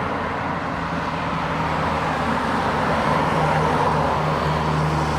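Road traffic noise with a vehicle engine's steady low hum, which comes in about a second in and grows stronger toward the end.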